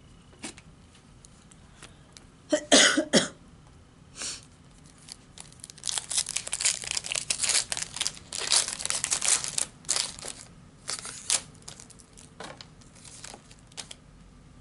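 A cough about two and a half seconds in. From about five and a half seconds a few seconds of crinkling, rustling and tearing follow as a foil trading-card pack wrapper is torn open and handled, then a few light clicks and rustles near the end.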